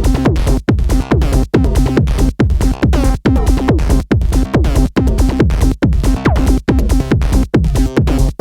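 Electronic techno music played live on hardware synthesizers and a groovebox. A steady, pumping pulse of a little over two beats a second, each beat dropping out sharply before the next, under held synth chords.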